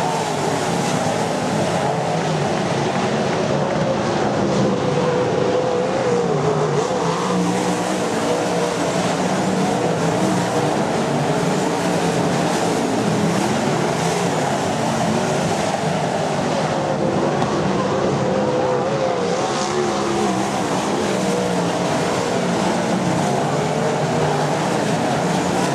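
Several winged sprint cars' V8 engines racing around a dirt oval: a continuous loud drone whose pitch wavers up and down as the cars lap.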